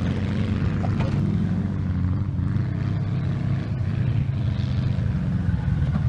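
Polaris RZR 1000 side-by-side's engine running steadily at a low, even pitch.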